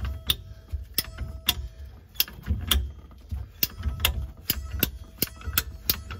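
Ratcheting ABS/PVC pipe cutter being pumped through a 1.5-inch ABS drain pipe, giving a run of sharp clicks, about two or three a second, over a low rumble.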